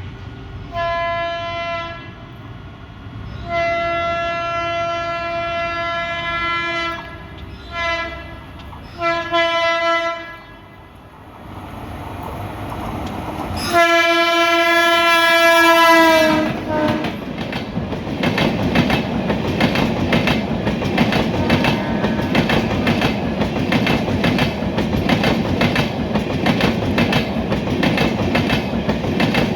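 Train horn sounding several separate blasts as a train approaches, then one long, loudest blast whose pitch drops as the train passes. The rapid, even clickety-clack of wheels over rail joints follows as the coaches go by.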